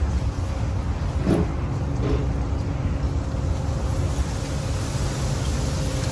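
Steady low rumbling background noise that wavers in level, with two brief faint higher sounds about one and two seconds in.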